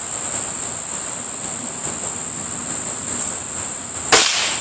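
A Beeman RS2 break-barrel spring-piston air rifle fires a .22 pellet once, a single sharp crack about four seconds in. Under it runs a steady high-pitched drone of insects.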